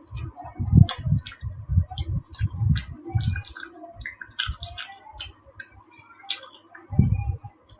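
Close-miked chewing of soft food, with wet mouth clicks and smacks. Low muffled chewing thumps run for the first few seconds and come again near the end.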